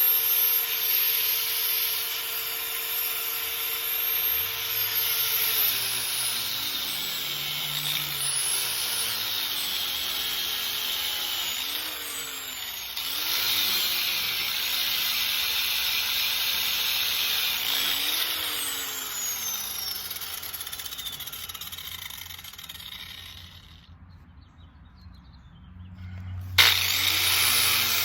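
Angle grinder running against a painted steel hinge, grinding the paint off; its pitch repeatedly sags and recovers as it is pressed into the metal and eased off. Near the end the sound drops away for a couple of seconds, then a sharp click and it runs again.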